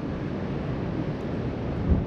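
Wind buffeting the microphone over a steady wash of ocean surf breaking on the beach, with a stronger gust near the end.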